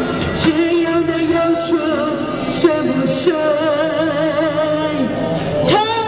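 A woman singing into a handheld microphone, her voice amplified through a portable busking speaker over a backing track, holding long notes with vibrato.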